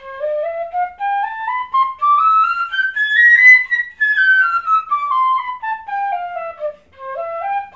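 Pífano (Brazilian transverse fife) in C playing a fast scale exercise in groups of four notes, three slurred and one tongued. It climbs about two octaves in quick steps to a high note about three and a half seconds in, runs back down, and starts another short up-and-down figure near the end.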